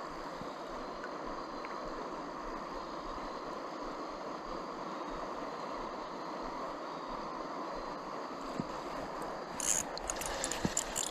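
Rushing river water flowing steadily over rocks, with a few short, sharp splashy sounds near the end.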